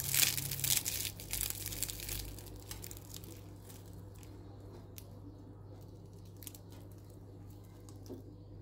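Crisp baked yufka pastry of a potato börek crackling and tearing as it is pulled apart by hand, densest and loudest in the first two or three seconds, then thinning to a few scattered crackles.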